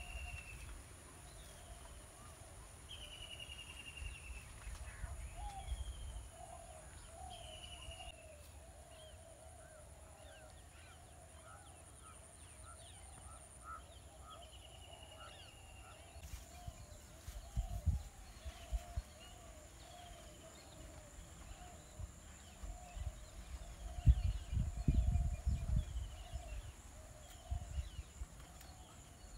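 Countryside ambience: a bird calling over and over with a short falling whistle, a steady chorus of lower wavering calls, and a thin high insect buzz. Low thumps come in twice, the louder ones about three-quarters of the way through.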